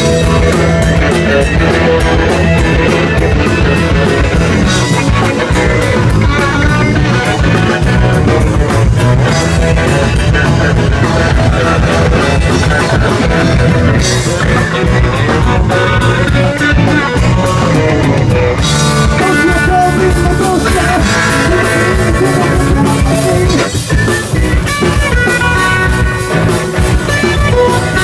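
Live rock band playing: electric guitar, bass and drum kit, with some singing or shouted vocals.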